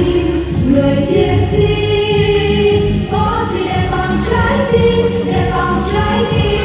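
A choir singing over an instrumental backing track, voices holding and sliding between long notes.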